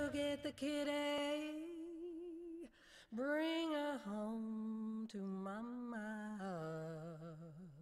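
A lone voice humming slow, held wordless notes, with little or no accompaniment; the notes step down in pitch over the passage, with a short break about three seconds in.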